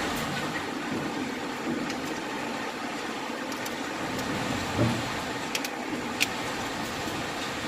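Hail storm: a steady hiss of falling rain and hail with scattered sharp clicks of hailstones striking, and a dull thud just under five seconds in.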